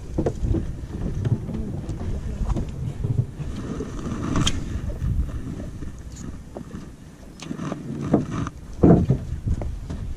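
Wind buffeting the microphone over a small boat on the water, an uneven low rumble, with a few light knocks and a louder knock about nine seconds in.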